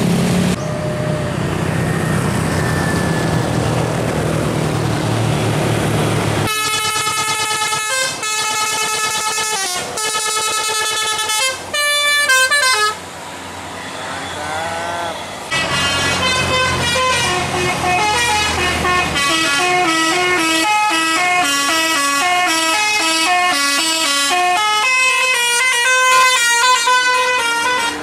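Tour buses with Basuri telolet horns, multi-trumpet air horns driven by a DAV electronic module, playing their melodic 'telolet' tunes while passing. Engine and road noise come first; about six seconds in a quick tune of repeated notes plays, and after a short pause about halfway through a longer tune of shifting notes follows.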